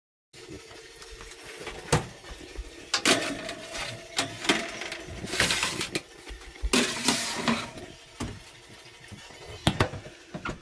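Kitchen food-prep handling sounds: scattered knocks and clicks of utensils and dishes, with a few short rustling or scraping bursts.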